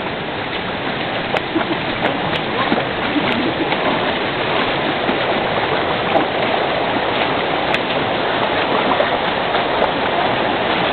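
Steady rush of flowing creek water, with scattered splashes and knocks of hiking boots stepping through shallow water on the trail.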